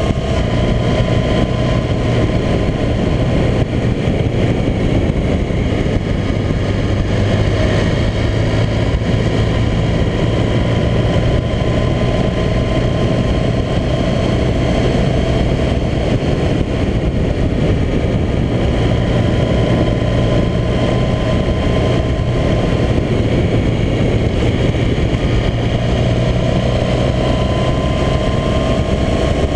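Motorcycle engine running steadily at a cruise while climbing, its note shifting a little in pitch now and then, with wind rushing over a microphone mounted on the bike.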